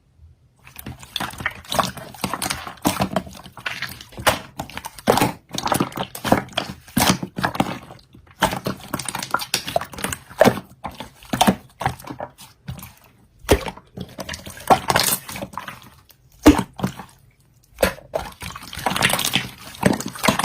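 Slime being squished and pressed by hand, making an irregular run of squelching pops and crackles, with a few short pauses.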